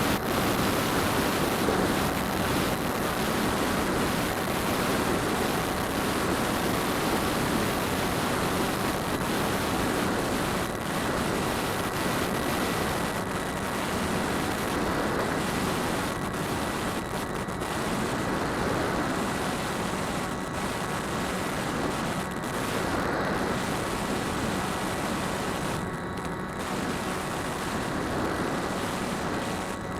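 DJI Phantom quadcopter's motors and propellers in flight, picked up by a keychain camera mounted on the drone: a steady rushing noise of prop wash and wind with a faint, steady high whine.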